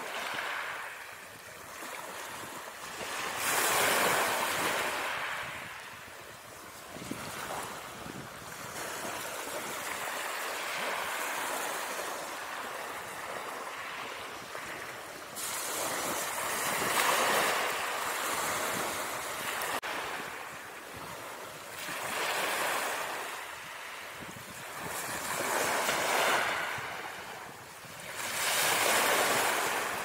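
Gentle surf washing onto a beach: a wash of water noise that builds and fades every few seconds, about six times.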